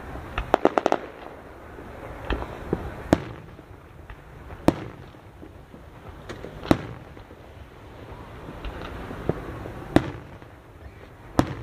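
Fireworks exploding: a quick run of five or six pops about half a second in, then scattered single sharp bangs every second or few.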